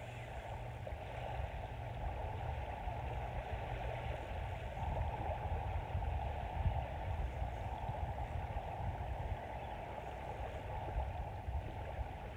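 Steady rushing of wind and small surf washing the sand, with a gusty low rumble of wind on the microphone.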